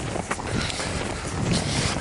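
Footsteps trudging through deep snow: several crunching steps about half a second apart, over a steady low rumble.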